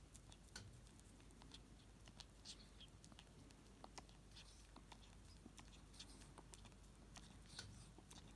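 A ferret licking and chewing cream and Christmas pudding from a bowl: faint, irregular small clicks and smacks of eating.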